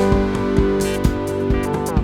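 Background music: pitched instrumental notes, with guitar, over a steady beat.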